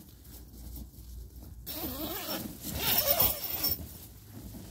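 Nylon tent zipper being pulled along its track, a rasping run that starts a little under two seconds in and lasts about two seconds.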